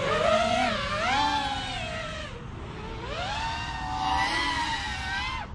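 Emax Eco II 2306 2400kv brushless motors on an FPV freestyle quadcopter, spinning Ethix S3 props, whining as the throttle is punched and eased. The pitch rises and falls in two surges, one over the first two seconds and another from about three seconds in, and it cuts off suddenly near the end.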